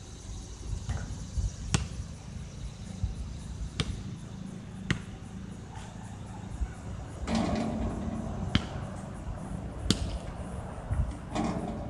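A basketball bouncing on an outdoor concrete court: several sharp, irregularly spaced smacks a second or more apart, heard from a distance over a low steady rumble.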